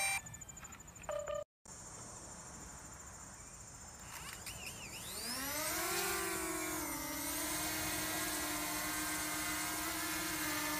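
DJI Mavic Mini's four propeller motors spinning up: a whine that rises steeply in pitch about five seconds in as the drone lifts off, dips briefly, then settles into a steady high buzzing hum as it hovers. A short beep sounds about a second in.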